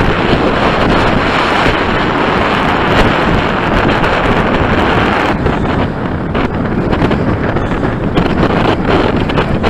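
Strong gusty wind, 20 knots and more, buffeting the microphone of a glasses-mounted action camera: a loud, continuous rumble and rush.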